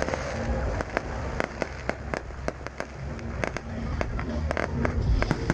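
Fireworks bursting and crackling overhead: a rapid, irregular string of sharp pops over a steady low rumble.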